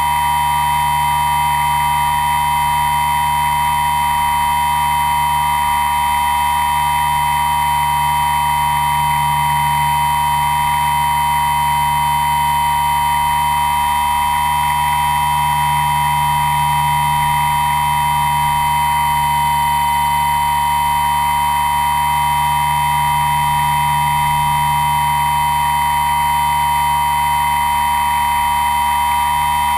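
Electric motors and propellers of the RC aircraft carrying the camera, a steady high whine with a low hum that swells slightly now and then as the throttle changes.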